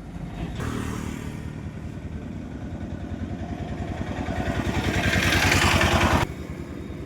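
Honda SP 125's single-cylinder four-stroke engine running, its pulses growing steadily louder for about five seconds, then cutting off suddenly near the end.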